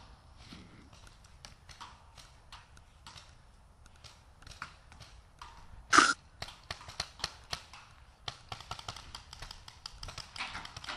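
Paintball markers firing: scattered sharp pops, one much louder close shot about six seconds in, then a quick irregular run of shots.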